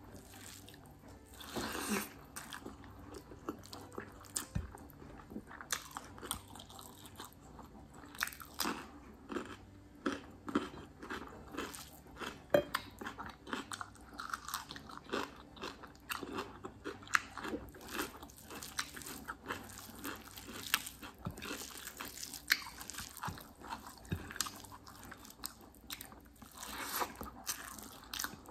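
Close-up chewing of a mouthful of rice and curry eaten by hand, with many short, irregular mouth clicks and smacks. Between bites come the soft sounds of fingers mixing rice and curry on the plate.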